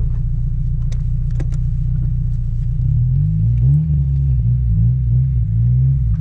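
Honda S2000's four-cylinder engine idling, heard from inside the open cabin, then its pitch rising and falling repeatedly from about three seconds in as the throttle is worked. Two light clicks about a second in.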